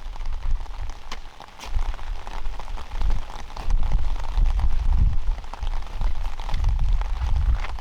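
Rain falling and pattering on a surface in many small drops, over an uneven low rumble.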